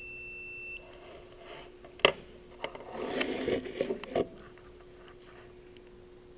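Digital multimeter continuity beeper giving one steady high beep just under a second long as its two probe tips are brushed together, showing continuity and that the meter is working. A sharp click follows about two seconds in, then rustling and light knocks of the test leads being handled.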